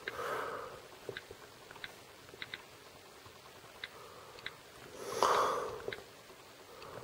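Scattered light clicks of an iPod touch on-screen keyboard as a web address is typed out, about ten taps with uneven gaps. Two breaths or sniffs close to the microphone, one just after the start and a louder one about five seconds in.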